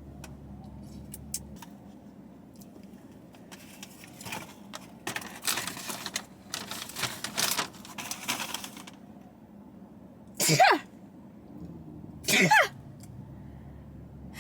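Paper food wrappers and bag rustling in a run of short crinkles as leftover food is put away, followed by two short vocal sounds, each falling in pitch, near the end.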